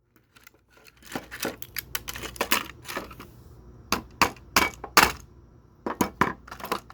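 Plastic alarm clock being broken apart: a run of irregular sharp cracks, snaps and clinks of plastic and small parts, starting about a second in.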